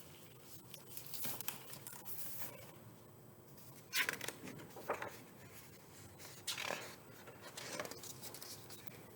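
Paper rustling in several short swishes and crinkles, as the pages of a picture book are handled and turned.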